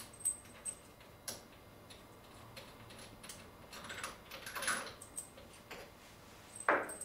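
Small metallic clicks and ticks of an Allen key turning the cap head screws out of a monoblock hydraulic valve's end cover. A short scraping rattle comes about four to five seconds in as the cover comes off the spring return, and a louder clack comes near the end.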